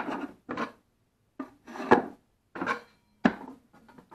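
Steel drywall taping knives being slid and dropped into the metal-strip slots of a wooden tool caddy: a series of short scrapes, with a sharp clack about two seconds in and another just past three seconds.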